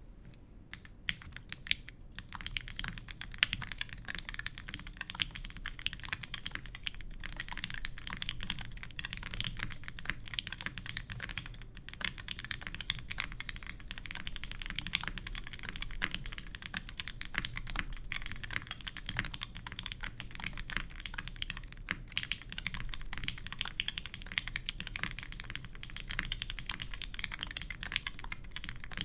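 Continuous fast typing on an ORI CLS3//88 custom mechanical keyboard with lubed vintage Cherry MX Black linear switches in an aluminium plate and GMK keycaps: a dense stream of key clacks that starts about a second in.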